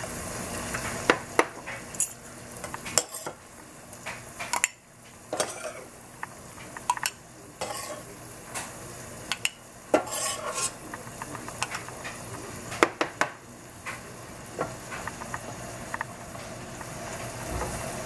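Metal spoon scraping and knocking against a stainless steel saucepan and a glass jar as mushrooms in sauce are spooned out, in irregular sharp clinks. Under it the sauce sizzles steadily in the pan on the gas flame.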